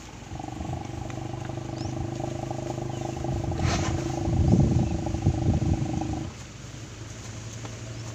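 Asian elephant rumbling: one long, low, steady call that swells over about six seconds and then stops abruptly.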